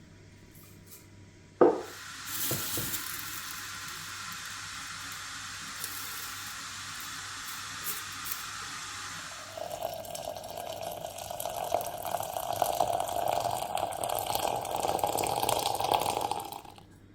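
Water running and filling a container, starting with a knock and changing to a fuller filling sound about halfway through, then cut off just before the end.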